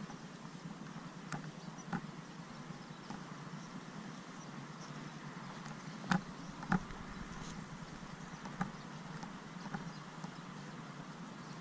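Steady rolling noise of a bicycle being ridden over a sandy track, with a few irregular sharp clicks and knocks from the bike. The loudest two come close together about six seconds in.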